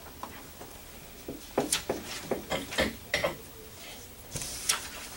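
Paper rustling and shuffling as sheets are handled on a wooden conference table: a run of short crisp rustles and soft knocks in the middle, then a longer rustle near the end.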